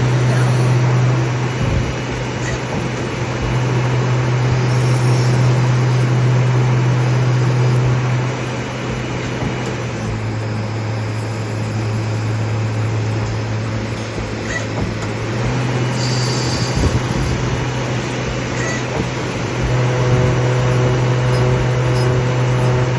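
2019 Campro NT-208 CNC lathe running a program: a steady low machine hum over broad running noise, shifting in pitch and level several times as the cycle changes steps.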